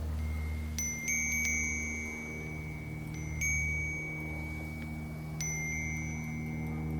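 Wind chime struck by the wind in a few irregular clusters of strikes, each clear, high tone ringing on for seconds, over a steady low hum.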